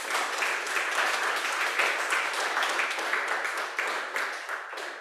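Audience applauding, many hands clapping steadily and beginning to die down near the end.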